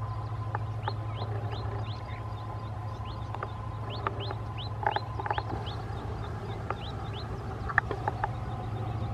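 Birds chirping with many short, quickly rising calls, over a steady low hum from the approaching WDP4D diesel locomotive's engine. A few sharp clicks come about halfway through and again near the end.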